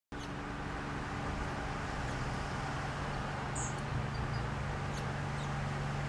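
A steady low mechanical hum with a rushing noise beneath it, with a few faint, short, high bird chirps, the clearest about three and a half seconds in.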